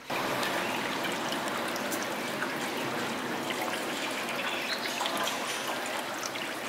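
Steady rain falling, with water trickling on wet stone steps; an even, unbroken rush that starts abruptly.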